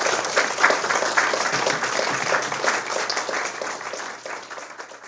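Audience applauding, the clapping gradually fading toward the end.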